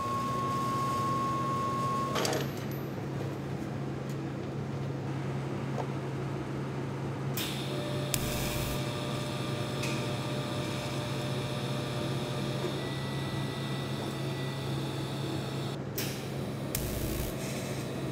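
TIG welding arc running steadily with a low, even hum. A thin high whine sounds over it for the first two seconds or so.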